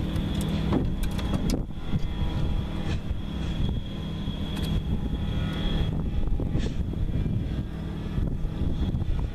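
A steady low drone with wind rumbling on the microphone, and a few light knocks scattered through.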